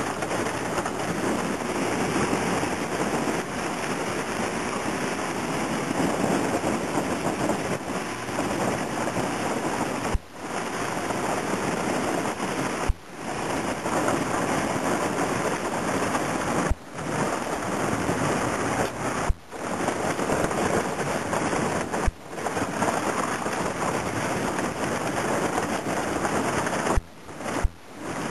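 Broken skim ice rattling and scraping against a metal boat hull as the boat pushes through a channel of ice floes: a dense, continuous crackling rush that drops out briefly several times.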